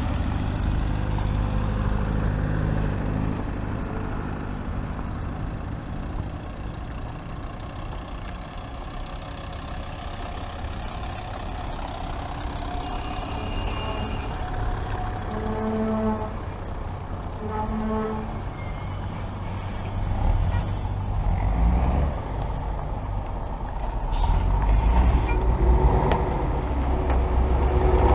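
Diesel city buses and minibuses running in street traffic, with two short horn toots about halfway through. The engine rumble grows louder near the end as a bus comes close.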